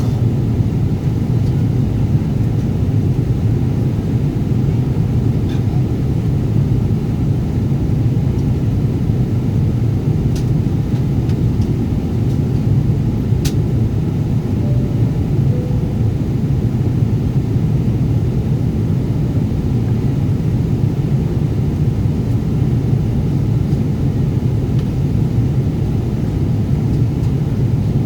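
Steady low rumble inside a Boeing 777 passenger cabin, the airliner's constant engine and air noise. A single brief click comes about thirteen seconds in.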